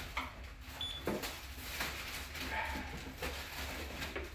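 Cardboard shipping carton rustling and scraping as the boxed laptop inside is slid out of it, with a few soft knocks of box against box.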